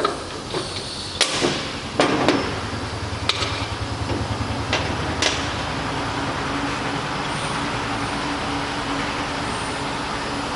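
CNC wood router running with a steady mechanical noise and a low hum. Several sharp knocks or clicks come in the first five seconds or so.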